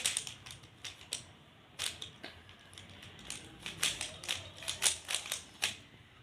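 Rubik's Cube being turned by hand during the last layer of the solve: quick plastic clicks of the layers snapping round, coming in irregular bursts.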